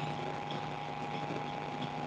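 Steady background hum with a constant low drone and a thin steady higher tone, unchanging throughout; no distinct event.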